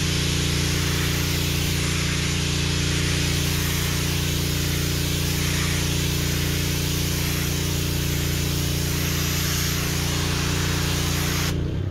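Pressure washer running steadily: its motor drones under the loud hiss of the high-pressure water jet striking the brick. The sound breaks off abruptly just before the end.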